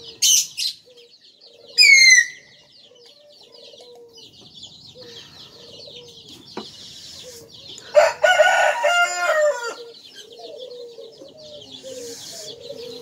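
A rooster crows once about eight seconds in, a drawn-out call and the loudest sound here, over continual high chirping of small birds. Two short, sharp bird calls come in the first two seconds.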